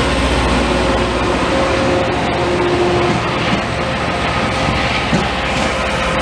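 Loram rail grinding train rolling past close by: a loud, steady rush of wheels and machinery with a deep rumble that eases about halfway through and a few faint held tones, mixed with the hiss of the rear car's water spray on the track.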